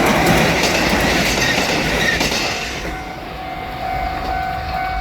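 Kotoden electric train passing over a level crossing, its wheels clicking over the rail joints, the train noise fading about three seconds in. A Japanese crossing bell rings steadily under it and comes through plainly as the train noise drops.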